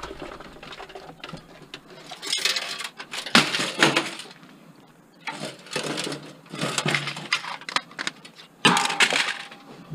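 Sheet-metal clanking and rattling from a desktop computer case as a stuck power supply is yanked and worked loose, in irregular bursts with the loudest knocks near the middle and near the end.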